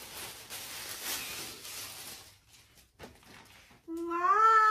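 Clear plastic packaging crinkling as a folded fabric suit is pulled out of its bag. Near the end, a long call that rises and falls in pitch is the loudest sound.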